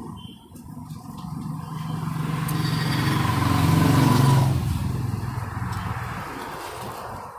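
A motor vehicle's engine passing by, swelling to its loudest about four seconds in, dropping slightly in pitch and then fading away.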